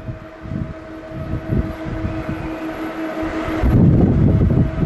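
Boeing 747-8's four GEnx turbofans at takeoff power in the climb-out: a low, crackling jet rumble with a steady droning tone over it. The rumble swells louder about two thirds of the way in.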